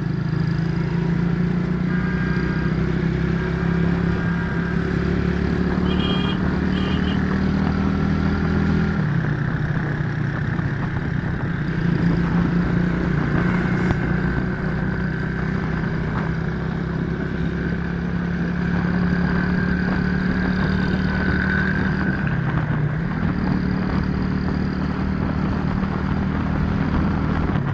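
Small motorcycle's engine running steadily under way, heard from the pillion seat over wind and road noise. The engine note drops about nine seconds in and dips briefly again a little after twenty seconds.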